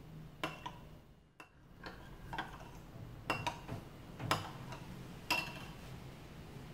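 Metal spoon stirring a thin milky syrup in a glass bowl, clinking lightly against the glass a handful of times at irregular moments.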